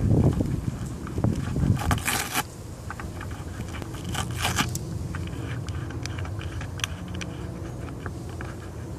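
Two short rasping bursts, about two and four seconds in, among scattered clicks, over a low rumble of wind and handling on the microphone that drops away after the first two seconds.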